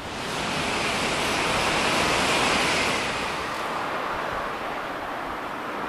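Shinkansen bullet train passing at high speed: a rushing noise of air and wheels that builds over the first couple of seconds, peaks, then slowly eases off.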